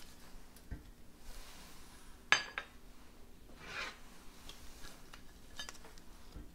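Kitchen utensils knocking on and scraping against dishes: one sharp, ringing clink a little over two seconds in, a short scrape near the middle, and a few light taps.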